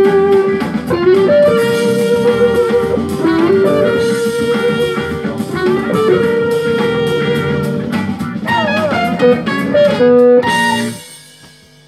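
Electric guitar, a Fender Stratocaster, playing a jazz-funk lead over a bass and drum backing, with bent, wavering notes and a held note near the end. The music stops about eleven seconds in, leaving a faint hum.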